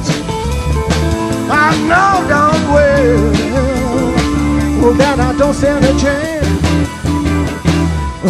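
A live rock band playing: steady bass and drums under a lead line that bends and wavers in pitch.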